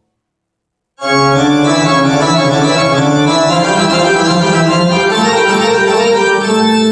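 Instrumental music with held, organ-like keyboard chords, reproduced loudly through Technics SB-6000A loudspeakers. It starts abruptly about a second in, after a moment of silence.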